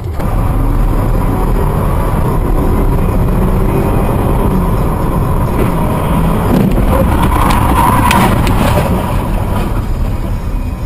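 Steady engine and tyre noise inside a car cabin, picked up by a dashcam while driving at around 60–70 km/h, with a few sharp ticks in the middle.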